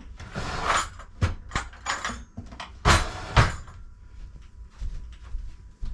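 A run of household knocks, clunks and clatters, like a door, cupboard or dishes being handled, with a brief rustle near the start. The two loudest knocks come about three seconds in.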